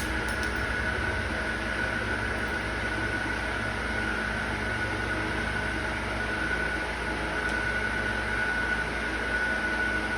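Steady mechanical hum with a constant high whine, even in level throughout.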